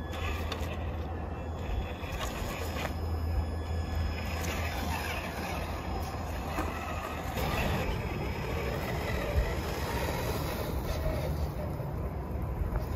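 Traxxas TRX-4 Defender RC crawler's brushed electric motor and geared drivetrain whirring as it drives over dirt and gravel, with a faint high whine from the motor and a steady low rumble underneath.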